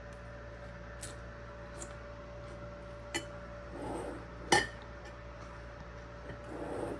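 Scattered clinks and knocks of kitchen utensils against dishes, the loudest about four and a half seconds in, with a couple of brief scrapes, over a steady hum.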